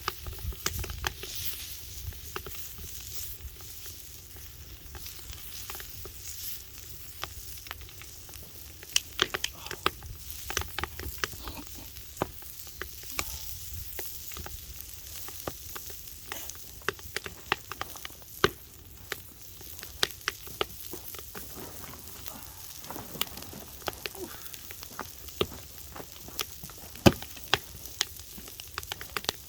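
Food grilling over a log fire: a steady sizzle with frequent sharp pops and crackles.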